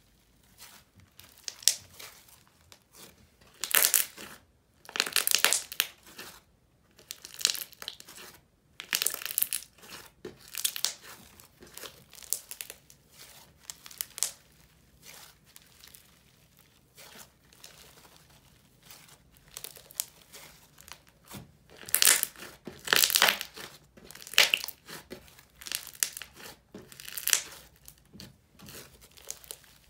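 Snow fizz slime being stretched, poked and squished by hand, crackling in irregular bursts. The loudest bunches come about four to six seconds in and again past twenty seconds.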